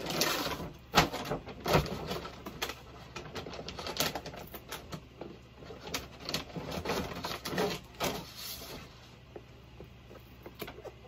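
Leftover bits of a Nike Air Force 1's tear-away upper layer being picked and peeled off by hand: irregular crinkly tearing and rustling with sharp little crackles, busiest in the first two-thirds and thinning out near the end.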